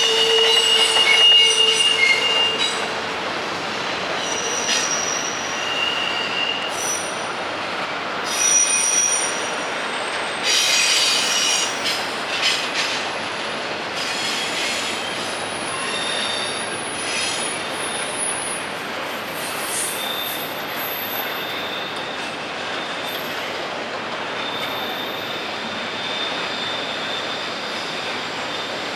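Freight train rolling past, its steel wheels squealing against the rails in high-pitched squeals that come and go over a steady rolling rush. The squeal is loudest in the first couple of seconds.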